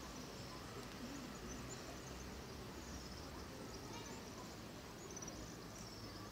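Quiet outdoor ambience: a steady low background hum with scattered faint, high-pitched chirps.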